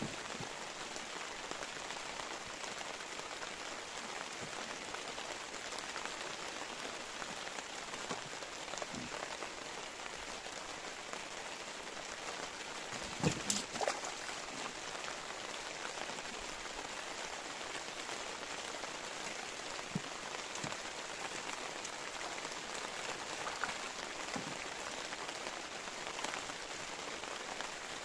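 Steady rain falling on the open water of a reservoir, an even hiss of countless drops. About halfway through comes a brief cluster of sharp knocks.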